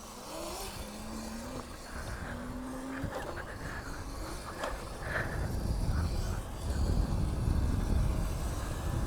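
Modded electric scooter on the move: a faint motor whine rises in pitch twice in the first three seconds, then wind rumble on the microphone grows louder from about five seconds in as it picks up speed.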